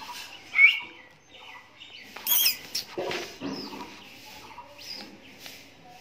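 Small bird chick peeping: a few short, high calls that fall in pitch, the loudest about half a second in and another a little over two seconds in.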